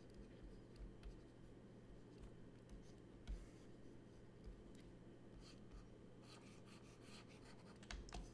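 Near silence: a low steady hum with faint scattered clicks, more of them in the last two seconds.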